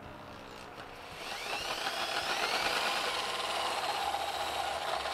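Electric drill with a 7/8-inch spade bit boring a hole through the side of a plastic rain barrel. The drill spins up, and about a second in the bit bites and the cutting grows louder, running steadily before easing off at the end.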